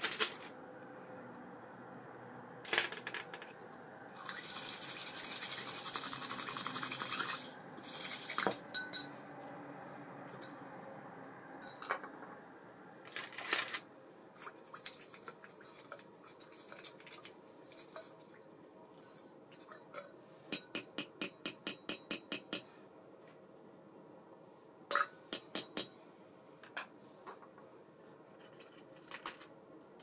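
Small metal reel parts and tools clinking and clicking while an ABU Ambassadeur 1500C baitcasting reel is worked on. A steady whir lasts about three seconds near the start, and later comes a quick even run of about a dozen clicks, roughly six a second.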